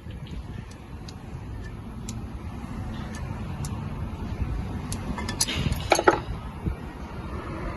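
Metal tools and parts clinking and knocking against each other, with scattered light clinks and a louder cluster of ringing clinks about five to six seconds in, over a low background rumble.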